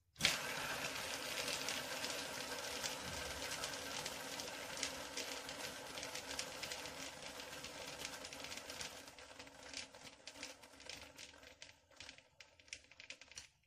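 A kids' scooter wheel spinning freely on its original, unreplaced ball bearings after a push by hand: a rushing whir that fades as the wheel slows and breaks up near the end into separate ticks that come further and further apart. The bearing noise is what marks these bearings for replacement.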